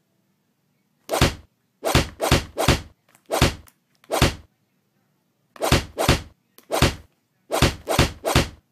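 A cat's paw smacking a tablet's touchscreen while the cat plays a fish-chasing game: about a dozen sharp thumps in irregular clusters, with silence between them.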